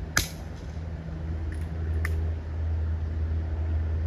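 A single sharp crack of a Brocock BRK Ghost PCP air rifle shot, a moment in, followed by two lighter clicks about a second and a half later, over a steady low hum.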